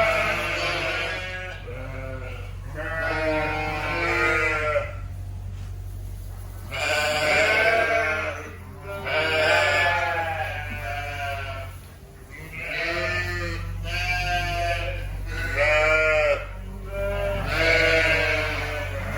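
A flock of sheep bleating, many calls overlapping one after another with hardly a pause, over a steady low hum. The flock is stirred up by a person coming into the barn.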